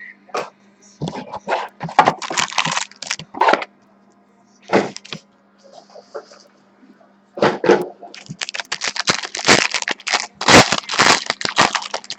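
Baseball card packs being torn open and handled: crinkling, crackling wrapper noise in two busy spells with a quieter pause between them. A faint steady electrical hum runs underneath.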